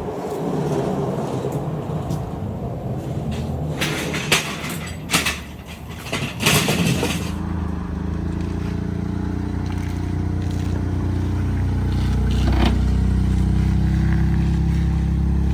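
A few sharp clicks and knocks, then a vehicle engine running steadily, getting a little louder partway through.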